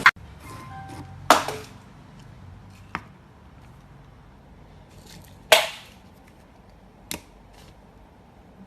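Four sharp knocks or smacks. The loudest come about one and a half and five and a half seconds in, with lighter ones near three and seven seconds, over a faint low hum.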